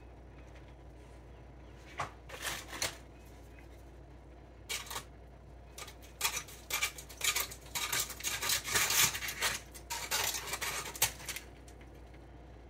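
Kitchen knife and carving fork cutting into a smoked pork butt on aluminum foil: irregular bursts of metal scraping and foil crinkling. They start about two seconds in and come thickest in the second half.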